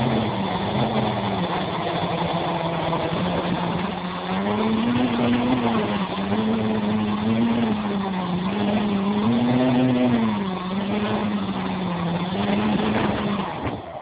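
Quadcopter's electric motors and propellers humming, heard up close through a phone mounted on the frame, the pitch rising and falling as the throttle changes. The hum cuts off near the end as the craft comes down in the grass and the motors stop.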